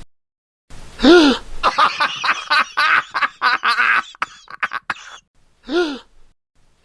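A short rise-and-fall vocal sound, repeated three times with the same shape, with a run of quick clipped voice sounds between them, cut in with hard silences like an edited sound effect.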